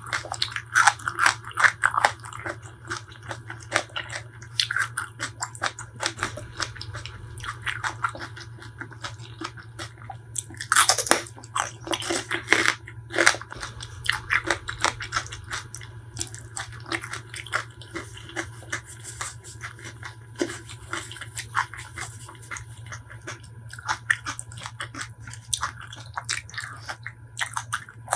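Close-miked eating sounds: chewing and crunching of food with many short, sharp mouth clicks, and a run of louder crunches about eleven to thirteen seconds in.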